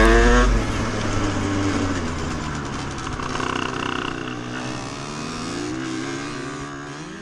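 50cc geared two-stroke moped engine running on an offroad ride, its pitch rising as it revs up near the end. Music with a heavy beat fades out within the first second.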